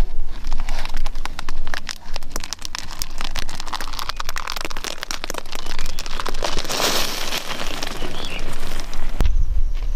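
Loose red gravel crunching and clattering under bare feet as a man scrambles down a gravel mound, with a longer rush of sliding stones about seven seconds in.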